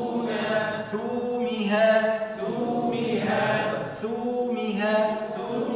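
Male voices reciting single Arabic words in a slow chant. About four drawn-out words are heard, each held on its long 'oo' vowel (madd with waw).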